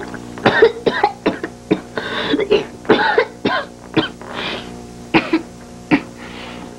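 A woman coughing and clearing her throat in short, repeated fits, with brief voiced gasps between them, as she lies unwell in bed.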